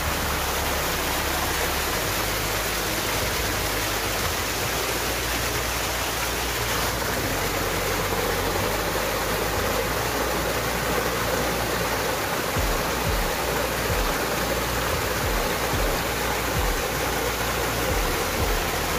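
Small waterfall and shallow mountain stream rushing steadily over rocks and stones. A few low thumps come in from about two-thirds of the way through.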